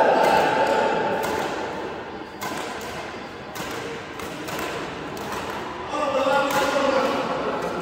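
Badminton rackets hitting the shuttlecock in a rally: a run of sharp strikes, roughly one every half second to second.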